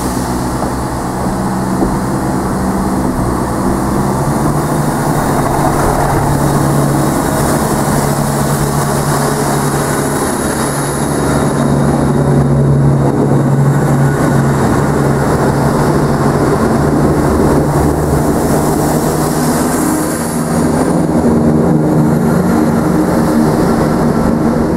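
Class 171 Turbostar diesel multiple unit pulling away from a station, its underfloor diesel engines working under power with a steady low drone as the cars pass close by. The drone grows louder about eleven seconds in, dips briefly near the end and comes back.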